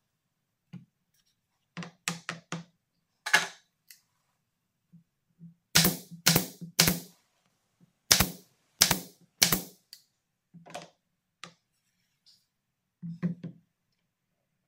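Sharp knocks and taps on wood at an uneven pace. The loudest come as two runs of three strikes about half a second apart near the middle, with lighter taps before and after.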